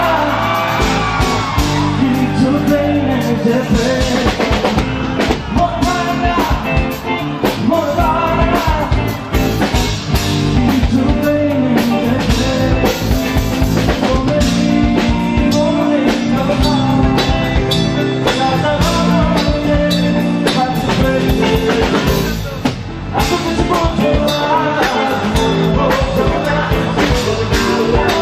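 Live pop-rock band performing a Bangla song: singing over strummed guitars and a drum kit, with a brief drop in level about three-quarters of the way through.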